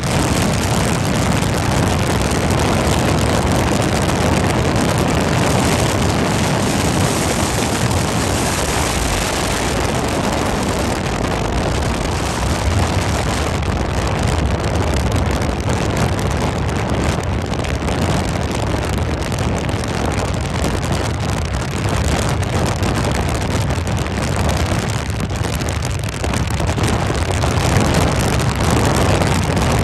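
Outboard-powered boats running at speed on the water: a loud, steady engine drone mixed with rushing water and wind buffeting the microphone.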